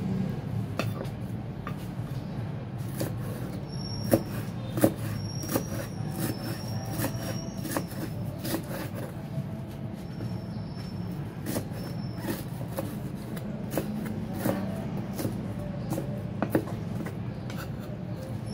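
Kitchen knife chopping shredded green mango on a thick round wooden chopping block: irregular knocks of the blade on the wood as the mango is minced fine. A steady low rumble runs underneath.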